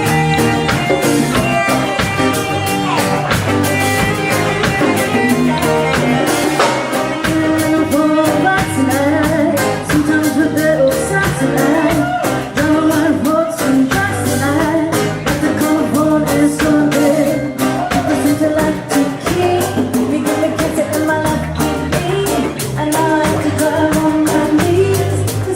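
A band playing a song with a sung vocal over guitar and a drum kit.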